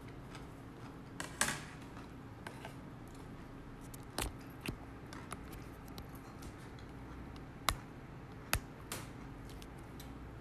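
Chopsticks clicking and knocking against a bowl and the table while someone eats: a handful of sharp, separate clicks a few seconds apart, over a faint steady hum.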